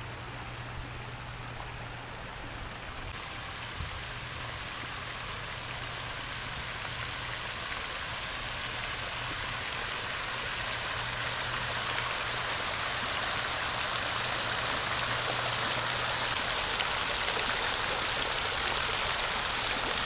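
Water of an artificial waterfall pouring down a wall into a shallow pool: a steady rushing splash that turns brighter about three seconds in and grows gradually louder, with a steady low hum underneath.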